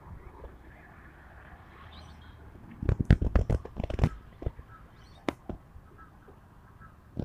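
Phone handling noise: a quick cluster of knocks and rubs about three seconds in, as the phone is moved and set down on a brick ledge, then a few single taps. Faint bird calls in the background.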